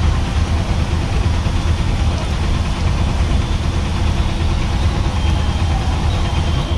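Steady low rumble with an even hiss over it, the dosa sizzling on a hot iron griddle.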